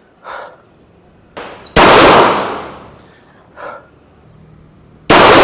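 Two deliberate shots from a System Defense C9 compact 9mm pistol, about three and a half seconds apart, each a sharp bang that rings out and fades slowly. Fainter short pops come in between.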